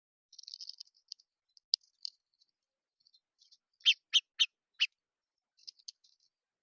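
Small songbirds at a feeder twittering and chirping, with a quick run of four loud, sharp chips about four seconds in.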